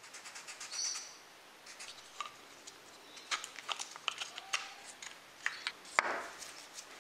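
Small wooden box being handled on a workbench: scattered light clicks, taps and rubbing, with a sharper knock about six seconds in as it is set down.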